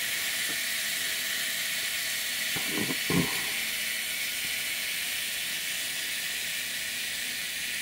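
Canon FTb's mechanical self-timer running its cycle, a steady high hiss of a whir, with a brief soft sound about three seconds in.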